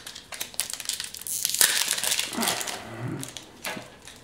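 Foil wrapper of a Pokémon booster pack crinkling as the sealed pack is picked up and handled, loudest about a second and a half in, with a few light taps before it.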